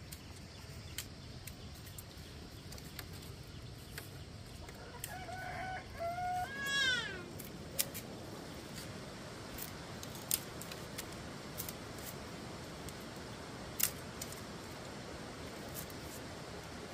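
A rooster crows once, about five seconds in, a stepped call that climbs and then arcs down over about two seconds. Scattered sharp clicks and taps of bamboo strips being split and trimmed with a knife.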